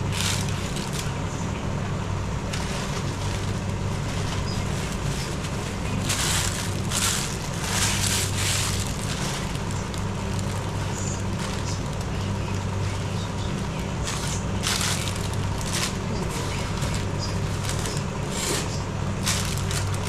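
Plastic packaging crinkling and rustling in irregular bursts, over a steady low hum.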